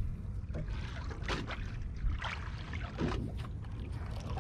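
Water lapping and splashing against the side of a small fiberglass boat, with a few short splashes about a second apart over a steady low rumble.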